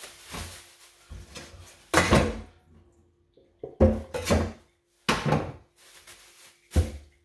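Handling noise at a kitchen counter: four loud knocks, each with a short rustle, as things are set down and moved about.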